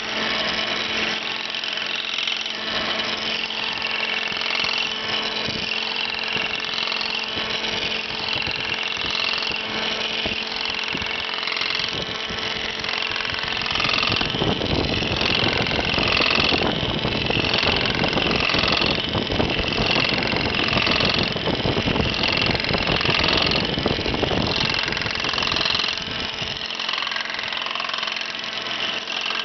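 Ober No. 11 copy lathe running on the final pass over a hickory axe handle: a steady motor hum with the rotating cutter head cutting the spinning wood. About halfway through, the cutting grows louder and rougher for roughly twelve seconds, then eases back.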